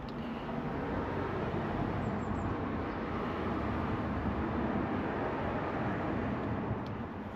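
Steady rumbling outdoor background noise that swells after about a second and eases off near the end.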